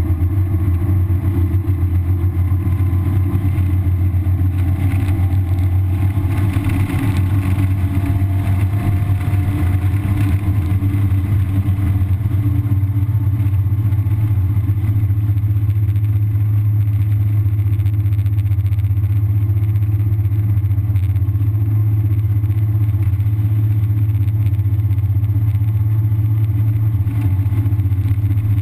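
1991 Mazda Miata's 1.6-litre four-cylinder engine, stock exhaust, running hard at speed, heard from inside the cabin as a steady drone mixed with road and wind noise.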